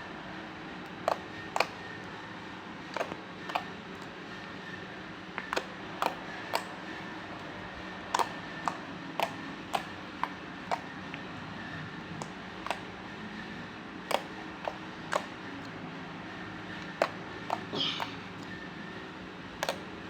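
Slime being worked, giving sharp, irregular clicking pops about one or two a second over a steady low hum, with a short, wetter squelch near the end.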